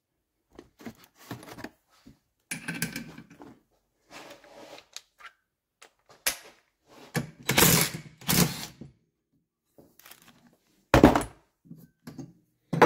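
Metal scooter clutch and engine parts handled on a workbench: scattered clicks, clunks and rattles, a longer clattering stretch about seven seconds in, and a sharp knock about eleven seconds in.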